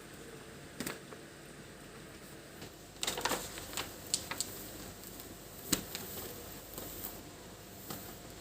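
Scattered light clicks, taps and crinkles of a vinyl sticker sheet being handled and pressed onto a refrigerator door, with a busier cluster about three seconds in and a few sharp single ticks after it.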